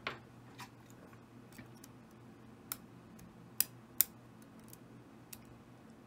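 A steel pick clicking and scraping against the small metal plug of an Elzett magnetic rotor lock cylinder while prying at a side cover that won't come off. The clicks are short and irregular, and the two sharpest come about three and a half and four seconds in.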